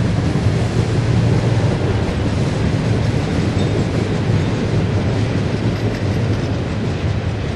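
Freight cars of a unit trash train, loaded with trash containers, rolling past on the rails: a steady, continuous rumble of wheels and cars.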